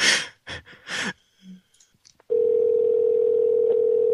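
A few clipped words over the phone line, then a steady telephone dial tone that holds for about two seconds and cuts off suddenly.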